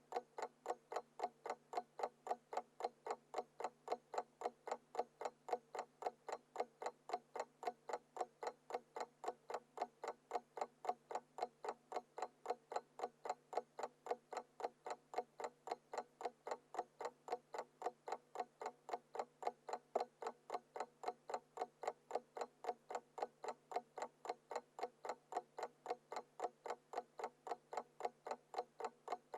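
Analog alarm clock ticking at a fast, even rate of several ticks a second, with no ringing.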